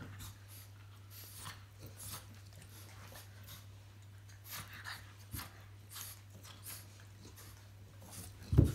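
A French bulldog and a St Bernard play-wrestling: a run of short, irregular snuffling breaths and mouth noises, with one loud low grunt or thump near the end.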